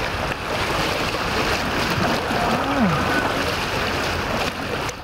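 Steady rushing noise of rough, choppy river water, with one short voice call about two and a half seconds in.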